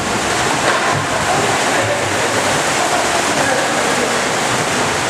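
Steady splashing and churning water from kayaks and paddles in a pool, echoing in a large indoor hall, with faint voices underneath.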